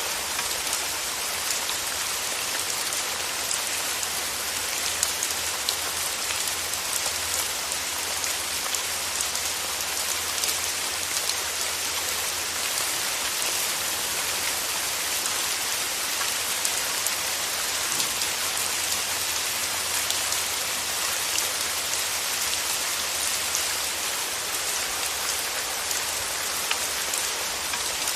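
Steady rain falling: a dense, even hiss with many small, sharper drop ticks scattered through it.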